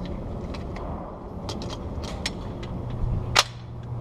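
Gunshots on a shooting range: a string of fainter, sharp shots, then one much louder, close shot about three and a half seconds in that rings on briefly.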